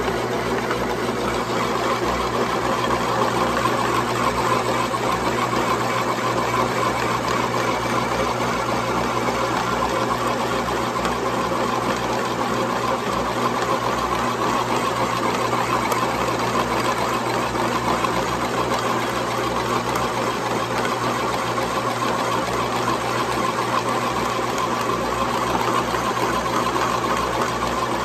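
Metal lathe running steadily, spinning a cut ring of steel ATV rim while a ball-bearing roller in the tool post presses on its edge to flare it outward cold, metal spinning without heat. A steady mechanical whir, even in level throughout.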